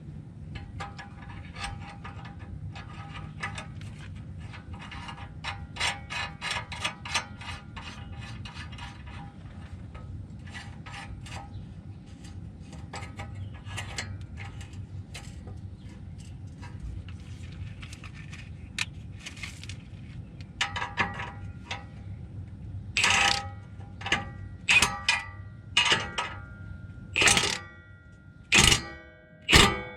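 Ratchet wrench clicking in quick runs while tightening the nuts of an exhaust muffler clamp. Near the end come several loud metallic clanks that leave a brief ringing.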